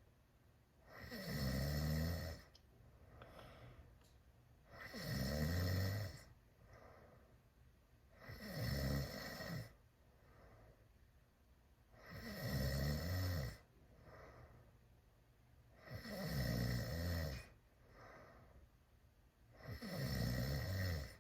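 A teenager snoring loud, with six long snores coming about every four seconds and fainter breathing between them.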